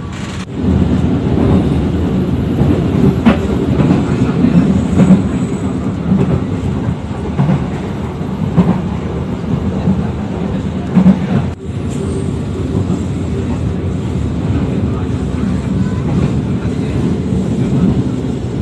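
Passenger train running at speed, heard from inside the carriage: a steady low rumble with irregular knocks and clatter from the wheels on the rails.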